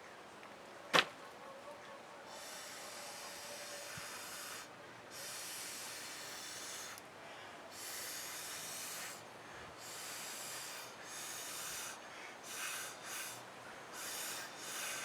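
A painting tool scraping and swiping wet paint across a canvas in a series of rasping strokes, each one to two seconds long, with a sharp click about a second in.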